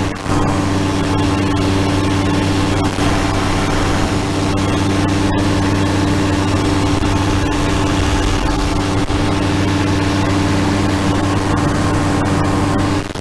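Powered parachute's rear-mounted engine and pusher propeller running steadily at cruise power, a constant drone heard from the cart seat.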